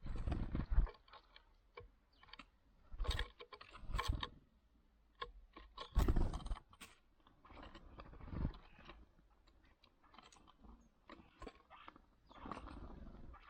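Great tits at a wooden tray feeder right by the microphone: bills pecking and scratching in the seed mix, and wing flutters as birds land and take off, in about six separate short bursts. The loudest comes about six seconds in.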